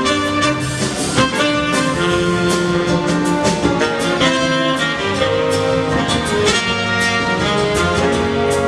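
Big band playing jazz: saxophones and brass holding chords over a drum kit's regular cymbal and drum strokes.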